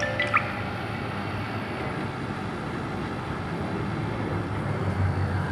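Carrier 1/4 hp air conditioner running: a steady low hum with even fan noise.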